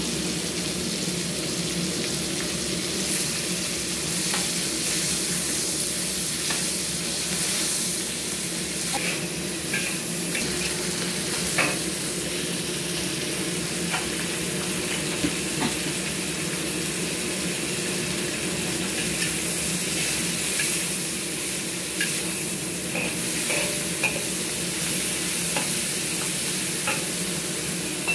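Prawns frying in oil in a wok: a steady sizzle, with a metal spatula scraping and tapping against the wok every so often.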